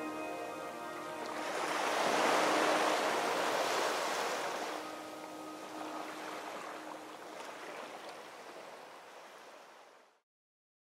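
Ocean surf washing in, swelling about a second and a half in and then slowly fading, under soft ambient music with long held tones. Everything fades out to silence near the end.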